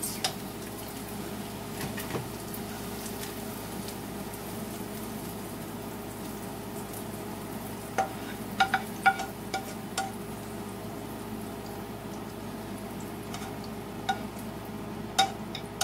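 Butter sizzling steadily in a frying pan as a sandwich roll grills in it. A few light clinks of cookware come about halfway through and again near the end.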